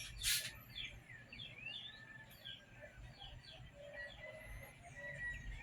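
Morning birdsong: many short chirps and quick rising and falling whistles from small birds, overlapping throughout. A brief burst of noise comes just after the start, and lower held calls join in near the end.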